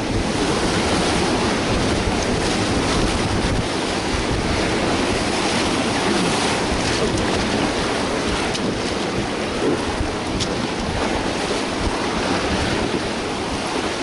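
River rapids rushing steadily around an inflatable catamaran raft, the whitewater a constant churning roar.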